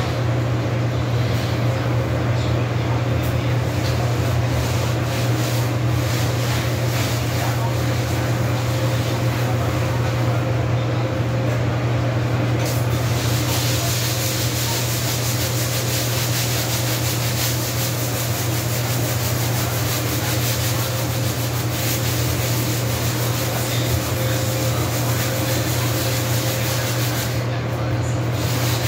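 Hand-scrubbing of a vinyl kitchen floor: a steady rubbing that gets louder and brighter from about halfway through, over a constant low hum.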